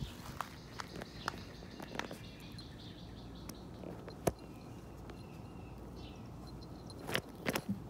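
Light scuffling and rustling of a puppy and kitten play-wrestling in dirt and grass, with a sharp click about halfway through and a short burst of scuffling near the end. Faint bird chirps in the background.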